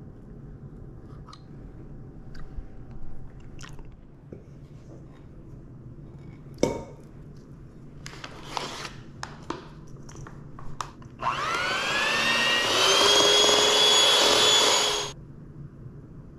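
Electric hand mixer beating cream cheese in a glass bowl: the motor rises in pitch as it spins up about two-thirds of the way in, runs steadily for about four seconds, then stops. Before it, a few light clicks of utensils and one sharp knock.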